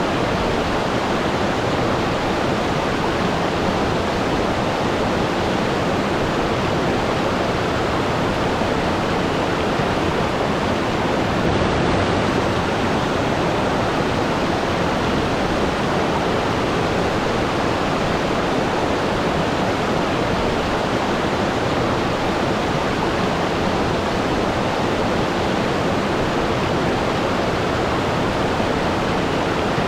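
Waterfall: water pouring and crashing steadily in an even, unbroken rush.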